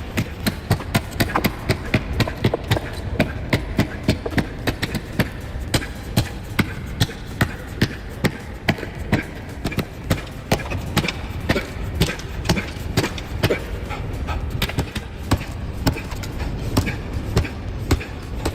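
Axes striking wood and roots again and again, sharp knocks at about three a second, over a steady low rumble.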